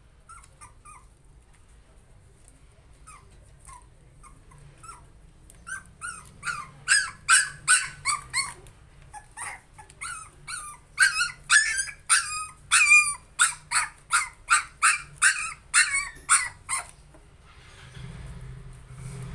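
Puppies yipping and squealing in short, high-pitched calls as they play-fight, faint at first, then loud and rapid, about two a second, from about six seconds in until near the end. A low steady rumble starts near the end.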